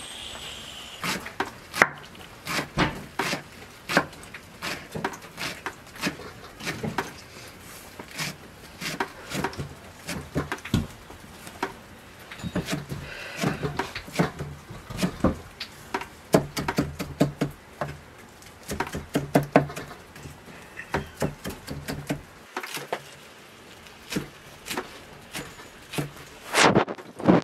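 Large kitchen knife chopping fresh green herbs on a wooden cutting board: quick, sharp chops in uneven runs, the blade knocking against the board.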